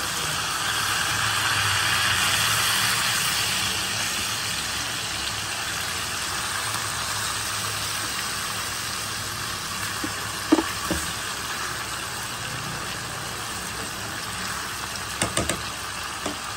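Marinated chicken drumsticks sizzling in hot oil in a nonstick frying pan as they are turned, a steady sizzle that eases slightly, with a few short knocks about ten and fifteen seconds in.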